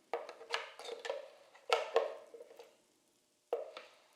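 Kitchen utensils and dishes being handled: about six sudden knocks and clatters, each dying away quickly, with a pause before the last one.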